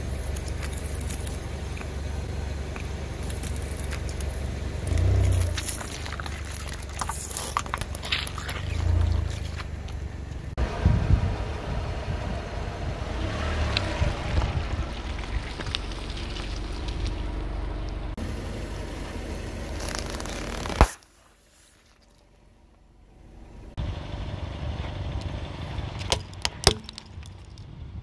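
Car tyre rolling slowly over plastic toy skull cups and then a heap of water beads, with a low engine rumble throughout and scattered cracks and crackles as things give way under the tyre. After a sharp click about three-quarters of the way in, there are a few seconds of near silence before the rumble returns.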